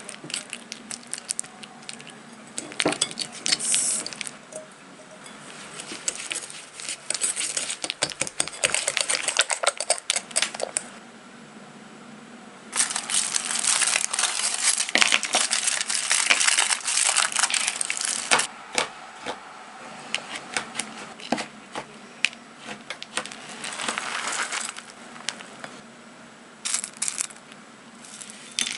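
Wire whisk beating cream cheese in a glass bowl: fast metal-on-glass clinking in several long stretches, with quieter pauses between them.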